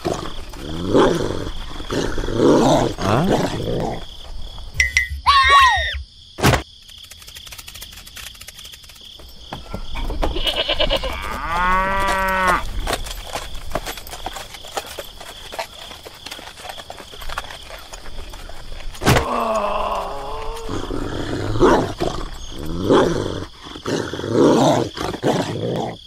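Farm animals calling: several drawn-out pitched calls come and go, one long arched call about halfway through, with a steady high whine behind them and a sharp click early on.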